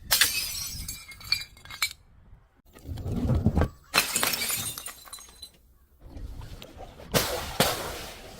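Glass bottles shattering three times, right at the start, about four seconds in and about seven seconds in, each crash followed by tinkling shards. A duller, lower thud comes just before the second crash.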